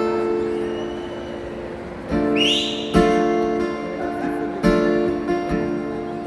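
Acoustic guitar playing a slow song intro, chords struck and left to ring, a new one every second or two. A short high call rises and falls over the guitar about two seconds in.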